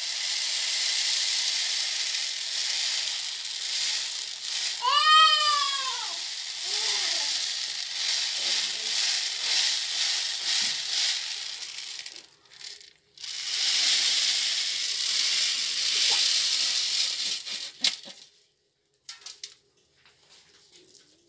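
Dark-roasted coffee beans pour in a stream from one aluminium pan into another with a steady rattling hiss. The hiss breaks off briefly about two-thirds of the way through and stops a few seconds before the end. A short rising-and-falling call sounds about five seconds in.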